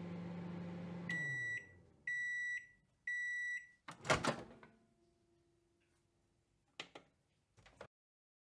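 Microwave oven finishing its cycle: the running hum winds down about a second in, then it gives three high beeps a second apart. The door clunks open just after four seconds, followed by two lighter clicks near the end.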